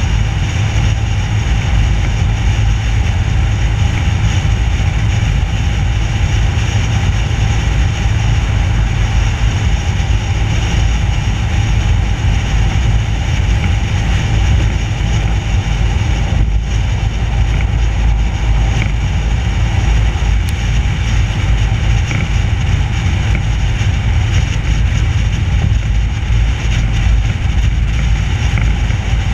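Steady loud rumble of wind and tyre road noise at a camera mounted low on a car's front bumper, driving at speed.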